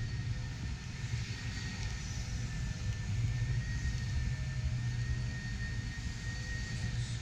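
Steady low rumble with a faint, thin high whine running through it: the background hum of a large indoor exhibition hall.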